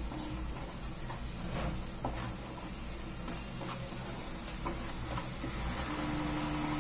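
Wooden spatula stirring and scraping a thick masala in a nonstick kadai over a steady low sizzle, with light scrapes every second or so. A steady low hum joins near the end.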